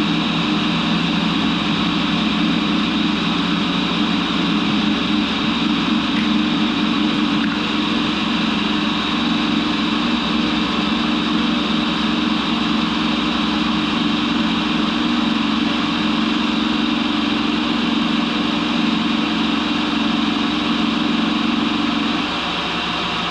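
Tool grinder running steadily while a carbide lathe bit is ground to add back rake, the table worked back and forth by hand. A low hum in the sound drops away about 22 seconds in, and the level falls slightly.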